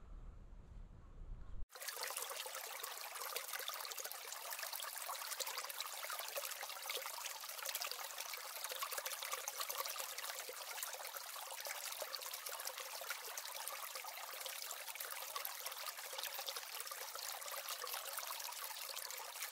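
Steady trickling, rushing water with no low rumble in it, starting abruptly about two seconds in.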